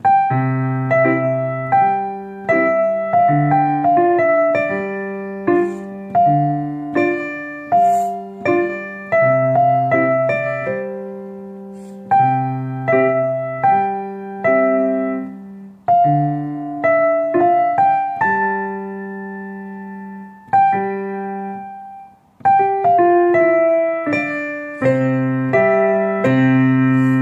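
Piano played as a duet: a simple melody of struck, decaying notes over low bass notes held underneath, with a brief pause a little before the end and a final chord left ringing.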